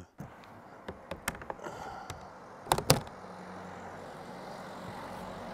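Plastic knocks and taps as a new white Fiamma roof vent is handled and set into the hole in a motorhome roof to test the fit. Scattered light taps come first, then two loud knocks close together about three seconds in, over a steady outdoor background hum.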